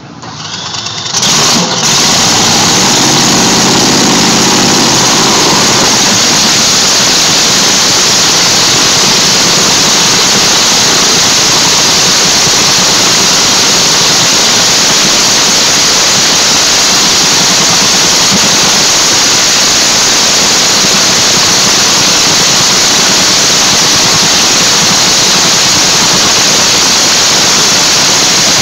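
Supercharged V8 dragster engine fired up about a second in for a pit warm-up, then running so loud that the recording is overloaded into a flat, harsh wall of noise.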